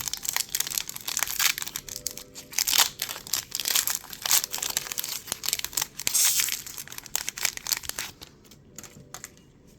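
Crinkling and tearing of a foil trading-card booster pack wrapper being handled and opened, dense crackling for about eight seconds, then dying down to a few faint handling ticks near the end.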